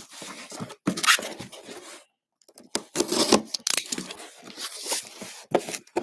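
Taped cardboard shipping box being opened and handled: packing tape tearing and cardboard flaps scraping and rustling in irregular bursts, with a short pause about two seconds in.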